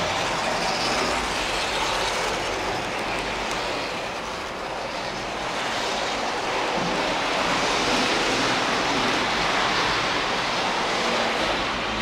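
Märklin model train running along its track, a steady whir and rattle of motor and wheels on the rails.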